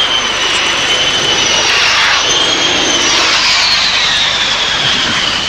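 Military jet aircraft flying past with a loud engine roar and a high turbine whine that falls in pitch about halfway through as it goes by.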